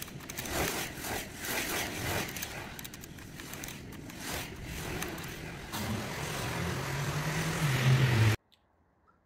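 Dymo 1750 embossing label maker clicking and scraping as letters are dialled on its wheel and pressed into the plastic tape. Near the end a steady hiss with a low hum builds up and cuts off suddenly.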